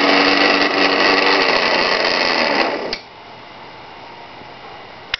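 Kenwood Chef A700D mixer's motor driving its glass blender attachment, running empty with a steady whine. It is switched off about three seconds in and stops abruptly.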